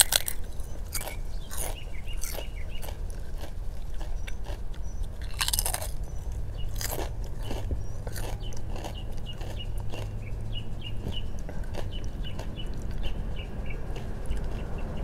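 Crisp crunching bites and chewing of sea salt potato chips, the crunches thinning out toward the end.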